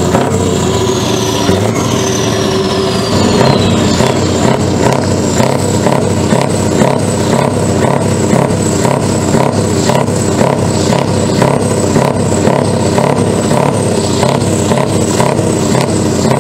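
Scania 143's 14-litre V8 diesel engine running loud and steady, with an even, rhythmic beat as the tractor unit rolls slowly. A high whistle falls in pitch over the first few seconds.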